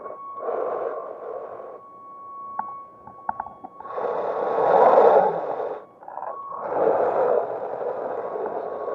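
Electric motor and gearbox of an RC monster truck whirring in three bursts of throttle, the loudest about five seconds in, with the wheels spinning on loose dirt. A thin steady whine carries on between the bursts.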